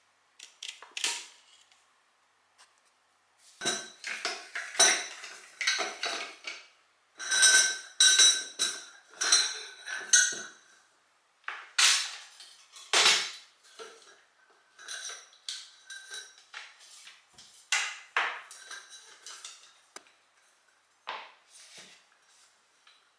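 Dishes and cutlery being handled and set down, clinking and clattering in irregular clusters with short ringing tones.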